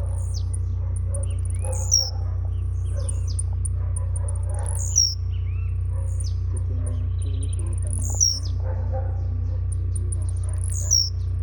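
Blue-black grassquit (tiziu) singing its short, high call four times, about every three seconds, each call sliding down in pitch, with quick high twittering between calls. A steady low hum runs underneath.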